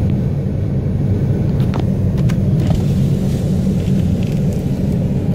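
Steady low rumble inside a car's cabin as the car sits in stopped traffic.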